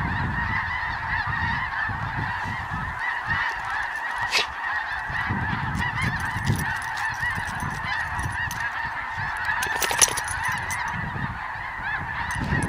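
A large flock of snow geese calling all at once: a dense, unbroken chorus of high, yelping honks. Brief sharp clicks sound twice, about four and ten seconds in.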